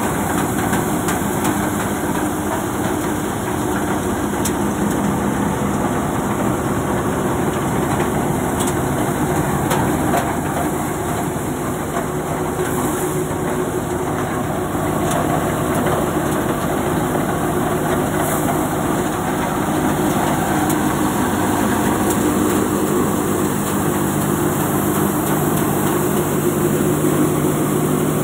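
Tractor-driven Mayur threshing machine running steadily while threshing moth beans: a loud, even machine hum with the tractor's diesel engine under it and a few faint clicks from crop going through.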